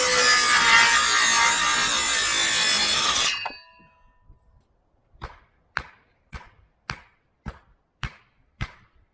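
A loud, harsh, steady noise that cuts off suddenly about three seconds in, then a hammer driving nails with about eight sharp, evenly spaced blows, nearly two a second, into the wooden frame of a chicken run.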